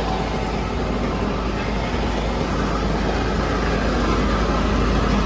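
Steady outdoor street ambience through a busy market crowd: a general hubbub with a constant low rumble underneath.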